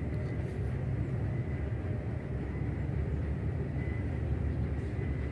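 Wind buffeting the microphone: a steady, rough low rumble.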